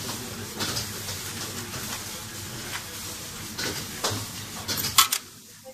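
Small restaurant's background: a steady hiss with scattered clicks and clatter. A sharp click comes about five seconds in, and the hiss drops away just after it.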